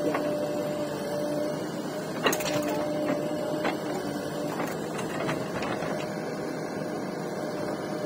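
Diesel engines of a backhoe loader and a tractor running steadily, with a held whine under them, while the backhoe works soil into the trolley. A few sharp knocks cut through, the loudest about two seconds in.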